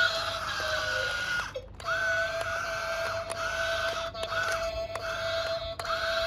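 Whine of small electric motors on a model construction machine, running in spells of a second or two. Each spell starts and stops with a quick rise and fall in pitch, and there is a short break about one and a half seconds in.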